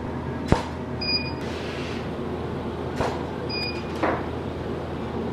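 Camera shutter fired by a remote release in a self-portrait photo studio: three sharp clicks, about half a second, three and four seconds in. After each of the first two, a short high electronic beep sounds, over a steady room hum.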